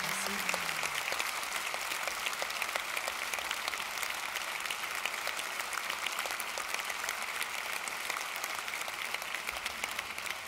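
Audience applauding steadily, a dense patter of many hands clapping, with a last low note dying away in the first second.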